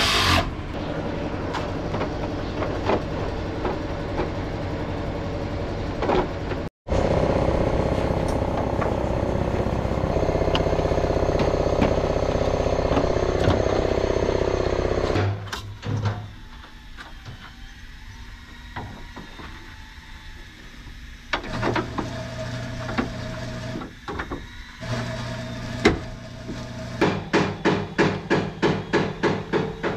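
Steady mechanical hum, like a running engine or machine, for about the first half, then quieter workshop noise. Near the end a rapid, even series of metallic knocks starts, about three a second, like hammering.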